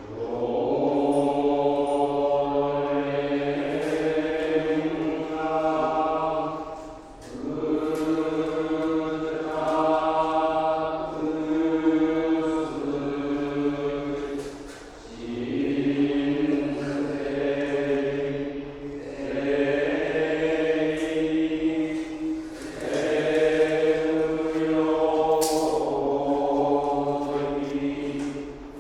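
Buddhist monks chanting in long held phrases of about seven seconds each, over a low steady tone beneath the voices; the phrases break off briefly three times.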